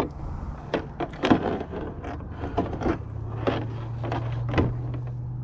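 Scattered sharp knocks and clicks, most likely from handling fishing tackle and a freshly landed shad, over a steady low hum.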